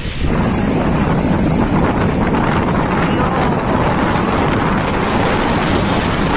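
Strong storm wind buffeting the microphone with a loud, steady rush; the sound changes abruptly just after the start.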